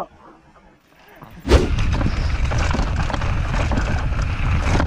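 A single sharp knock about a second and a half in, then steady rushing wind and rumble on the microphone, typical of a mountain bike riding downhill.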